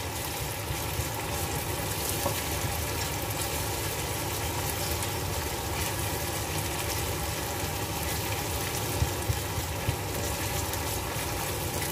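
Food frying in oil in a pan: a steady sizzling hiss with fine crackles.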